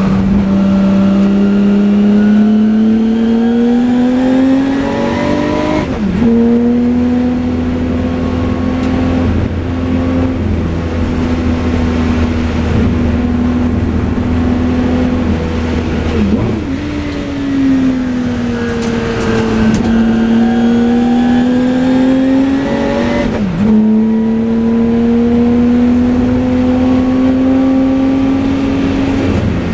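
Jaguar Broadspeed XJ12C's V12 racing engine at speed, heard from on board: the note climbs and drops sharply on gear changes about 6 s in and again near 23 s, with a long slow fall in revs midway before it climbs again.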